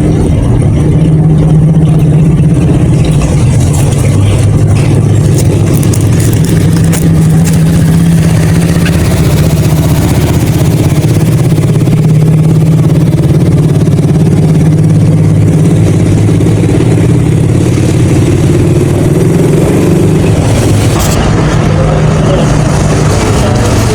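An engine running steadily with a low, even hum, its pitch wavering slightly without stopping.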